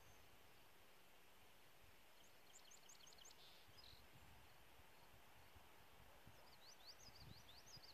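Near silence with faint bird chirps: a quick run of short high chirps about two seconds in, and a second series of rising chirps in the last second and a half. No shots are heard.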